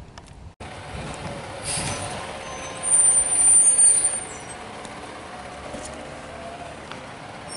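Peterbilt 520 McNeilus ZR garbage truck running as it drives. A short hiss of air comes about two seconds in, then a high-pitched squeal lasting about a second, the loudest sound here.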